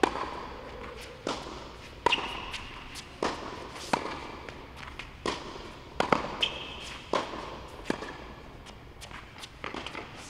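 Tennis rally on an indoor hard court: sharp pops of the ball off the rackets and the ball bouncing, roughly one every second, each with a short echo off the hall.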